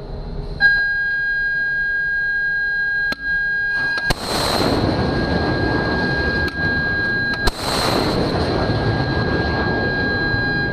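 A steady high tone sounds from about half a second in. Then two missiles launch from a shipboard Rolling Airframe Missile launcher about three and a half seconds apart, each a sharp crack followed by a rushing roar that fades.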